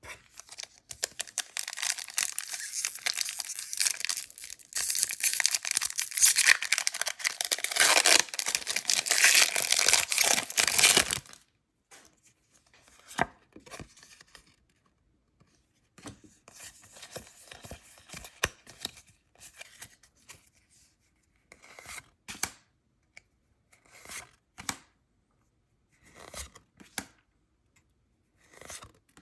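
A Pokémon booster pack's foil wrapper crinkling and tearing open for about the first eleven seconds, then the cards inside being slid and flipped one at a time, short soft swishes every second or two.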